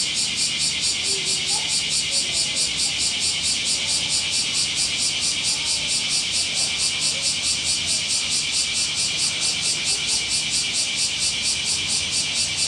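Cicadas in full summer chorus: a loud, high-pitched rasping pulse at about five beats a second.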